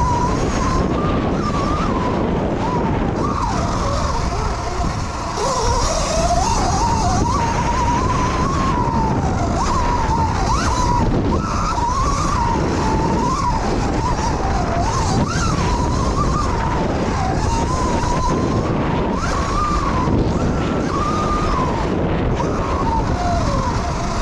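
Electric dirt bike's motor whining, its pitch constantly rising and falling with the throttle, over a steady rush of noise.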